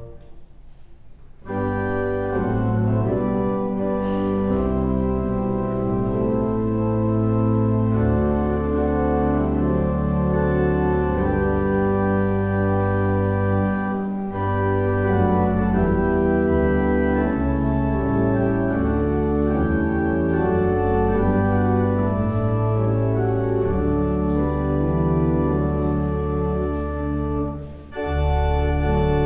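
Organ music of a funeral prelude: slow, sustained chords that begin about a second and a half in after a short pause, with a brief break near the end.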